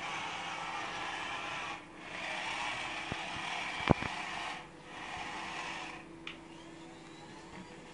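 Toy excavator's small motor and gears whirring in spells with short breaks between them, the last spell weaker, and a sharp click about four seconds in.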